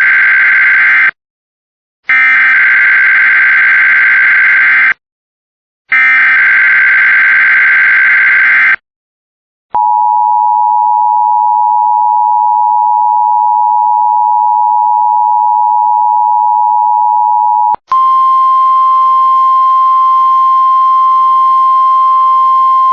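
Emergency Alert System weekly test signals. First come the EAS SAME header data bursts, a harsh digital screech repeated in roughly three-second bursts with a second's pause between them. About ten seconds in, the EAS two-tone attention signal, two close pitches sounding together, holds steady for about eight seconds. Then a single steady warning alarm tone from NOAA Weather Radio starts over radio hiss.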